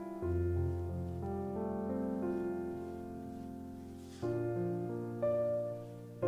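Background piano music, gentle and slow, with sustained notes and chords changing every second or two.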